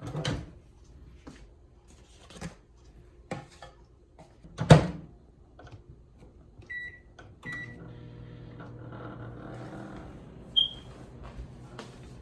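Microwave oven being loaded and started. A few knocks and one loud thump come first, then two short keypad beeps, after which the oven settles into a steady running hum. A single higher beep sounds near the end.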